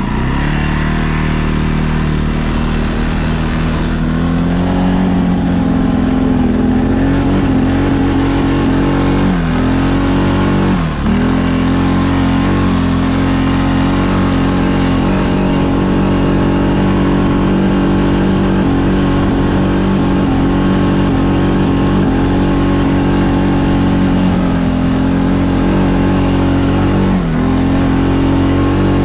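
CFMOTO CForce 625 ATV's single-cylinder engine running steadily under load while climbing a steep dirt trail. The engine note briefly dips in pitch three times and then picks back up.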